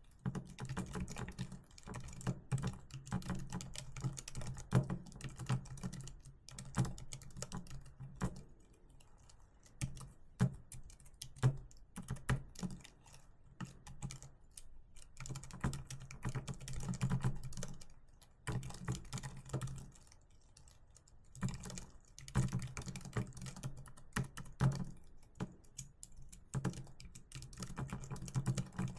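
Typing on a keyboard: fast runs of key clicks with short pauses between them.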